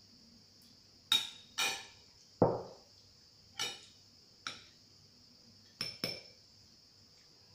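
Metal cutlery clinking and knocking against a ceramic plate and a small glass bowl: about seven separate sharp clinks spread over several seconds, the loudest a duller knock about two and a half seconds in.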